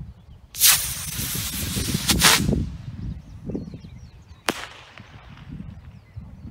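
Estes black-powder model rocket motor igniting about half a second in and hissing for about two seconds as the rocket climbs. A single sharp pop about four and a half seconds in is the motor's ejection charge firing to deploy the recovery.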